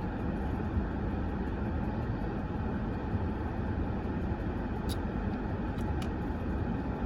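Steady low rumble of a parked car's idling engine heard from inside the cabin, with a couple of faint clicks about five and six seconds in.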